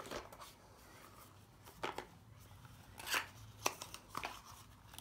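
Cardboard packaging being handled: a few short scrapes and taps as a black inner compartment is lifted out of a tablet's box.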